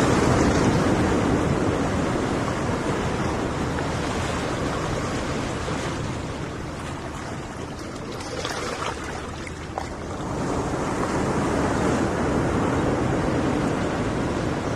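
Sea waves washing onto a beach: a wave surges in at the start and slowly draws back, growing quieter, with a few faint ticks in the lull; the next wave swells in about ten seconds in.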